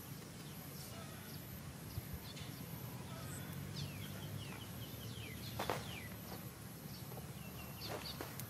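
Outdoor field ambience with scattered short, high chirps that fall in pitch, several in quick runs, and one louder sharp call a little past halfway, over a steady high thin whine and a low rumble.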